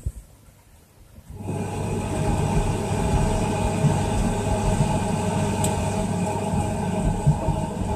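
Scharpf Victoria front-loading washing machine's motor starting about a second and a half in and driving the drum round fast, with a steady hum and whir.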